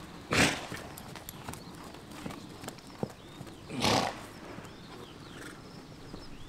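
Horses working in an arena, hooves faintly beating on the footing, with two loud, short blowing snorts about three and a half seconds apart.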